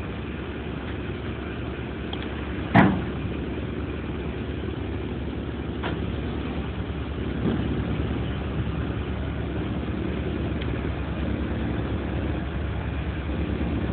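SANY crawler crane's diesel engine running steadily, with one sharp loud bang about three seconds in and a couple of lighter knocks later.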